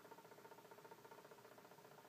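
Near silence: room tone with a faint steady hum.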